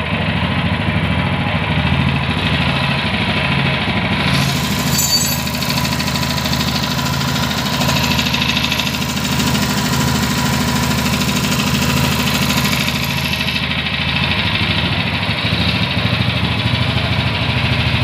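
6.5 hp single-cylinder four-stroke walk-behind-tractor engine running steadily at idle.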